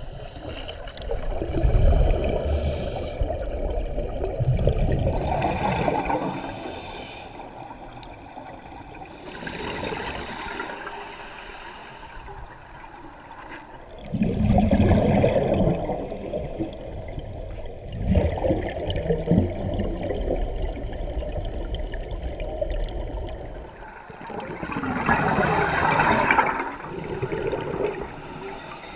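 Scuba divers' regulator exhaust bubbles gurgling underwater, in bursts every four to five seconds with each exhaled breath.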